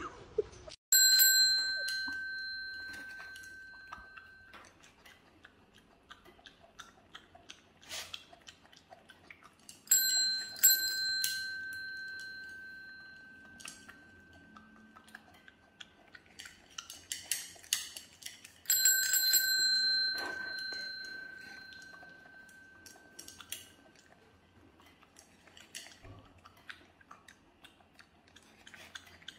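A chrome desk service bell rung three times, each clear ring dying away slowly over several seconds; the second ring is struck twice in quick succession. Faint clicks and scrapes come between the rings.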